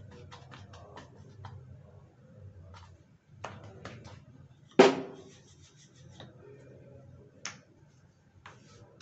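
Irregular clicks and knocks, like kitchen utensils being handled, with one loud knock about five seconds in, over a low steady hum.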